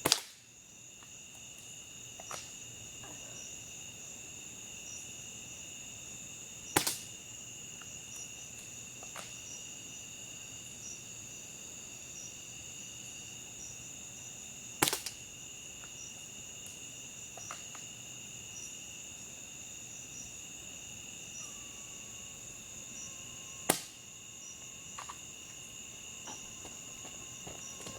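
Four shots from a Well MB06 spring-powered bolt-action airsoft sniper rifle: sharp cracks roughly eight seconds apart, with quieter clicks between them. Steady chirping of night insects underneath.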